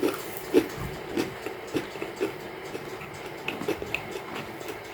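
A person chewing freshly baked puff-pastry rolls: short, soft mouth sounds about twice a second, thinning out after the first couple of seconds.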